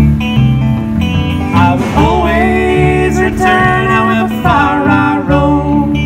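Acoustic guitar and electric bass guitar playing a song live, with a steady bass line under the strummed guitar and a melody that slides up and down in pitch.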